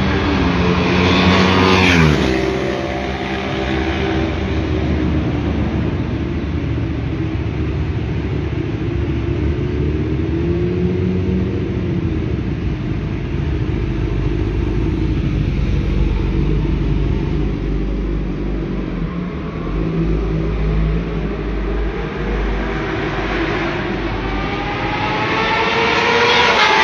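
Sportbikes at high revs passing along a race circuit's straight. An engine note falls sharply in pitch as one bike goes by about two seconds in, engines drone steadily in between, and another bike approaches with a rising note and passes near the end.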